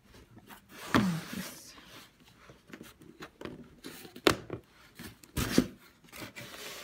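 A cardboard gift box being handled and its lid lifted open: scattered scrapes, rustles and a few sharp knocks of cardboard, the loudest about four and five and a half seconds in.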